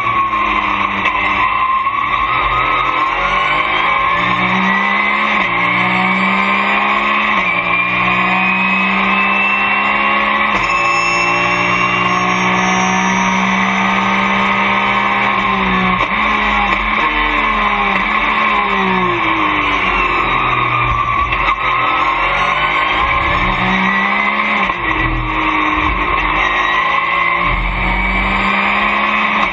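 Porsche race car's engine heard from inside the cockpit at racing speed, the revs climbing hard and then dropping sharply at each gear change, over and over through the lap.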